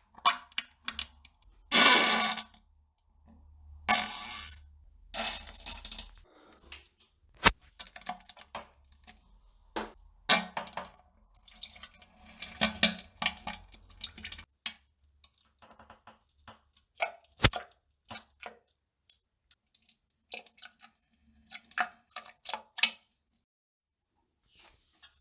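Bowel movement into a toilet bowl: an irregular series of splashes and plops in the bowl water, some sharp and some about a second long, growing sparser and quieter in the second half.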